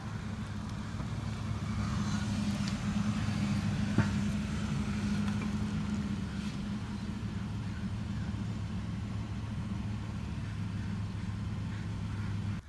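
Steady low drone of a running motor, with one sharp click about four seconds in; the drone cuts off suddenly at the end.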